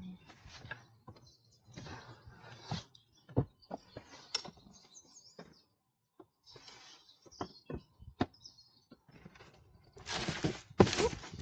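Cardboard packaging and mower parts being handled during unboxing: scattered light knocks and clicks with soft rustling, then two louder rustling, scraping sounds near the end.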